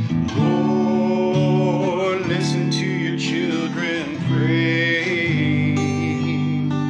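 Slow background music led by acoustic guitar, with long held notes.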